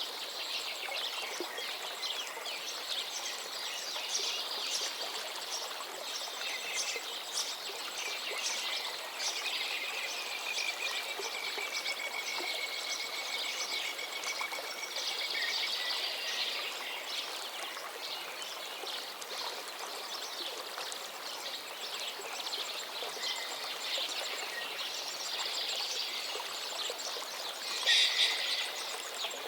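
A river flowing steadily, its water babbling and splashing, with birds calling at times over it. One long, thin whistle runs for several seconds in the middle, and there is a brief louder splash-like burst near the end.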